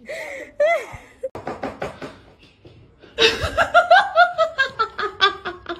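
A person laughing hard about three seconds in, in quick repeated bursts that fall in pitch, after a couple of short vocal sounds at the start.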